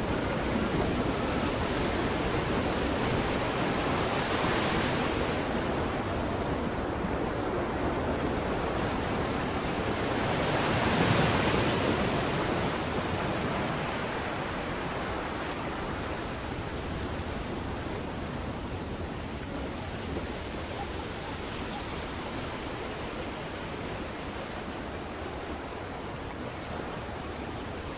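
Ocean surf: a steady rushing wash, with two waves swelling louder about four and eleven seconds in, then settling a little quieter.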